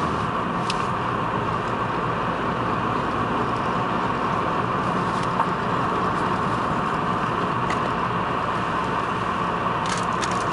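Steady engine and road noise heard inside a moving car's cabin, with a few light clicks, most of them near the end.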